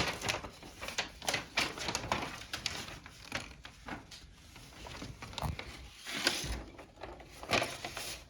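Small plastic kit parts and packaging being handled: an irregular run of light clicks and rustles, with a couple of longer rustles near the end.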